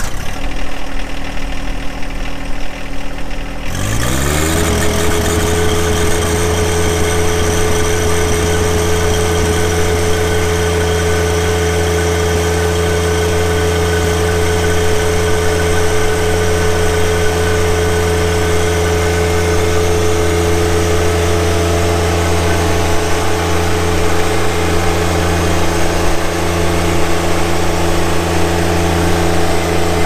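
John Deere 1025R compact tractor's three-cylinder diesel running, throttled up about four seconds in, then holding a steady high speed.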